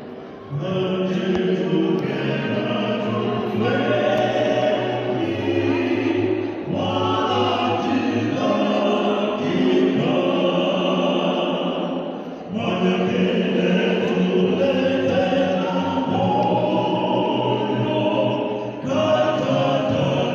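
Vocal quartet singing in harmony, in held phrases of about six seconds with short breaks between them.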